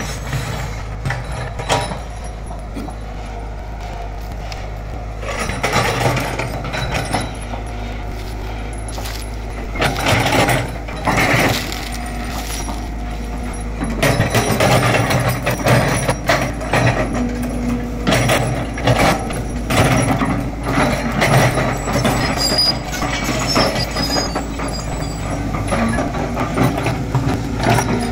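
Tracked hydraulic excavator at work: its diesel engine runs steadily and grows louder in stretches as the boom and bucket move, with knocks and scrapes from the bucket working the soil.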